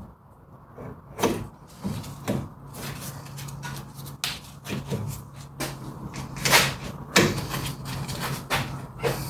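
Irregular metallic clicks and clunks as a front brake caliper is handled and set back over freshly installed pads, with the loudest knocks a little past the middle. A low steady hum runs under the middle part.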